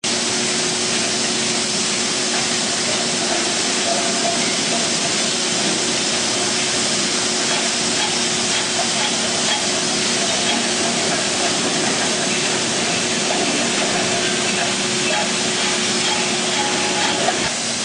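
PET bottle unscrambler and its air conveyor running: a steady rushing hiss with a low, even hum beneath it.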